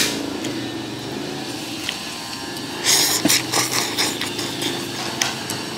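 Steady background din with a short clatter of sharp clicks about three seconds in, typical of utensils knocking against a ceramic soup bowl.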